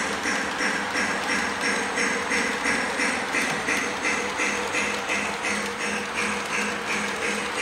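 Model steam train running on track: a steady mechanical running noise with a hum, beating in an even rhythmic clatter of about three to four beats a second.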